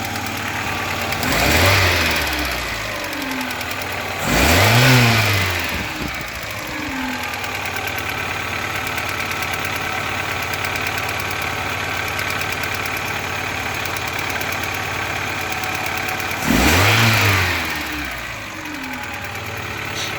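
Volkswagen Passat B2 engine idling and revved briefly three times, each rev rising and falling back to idle. It has a knock whose cause the owner does not know.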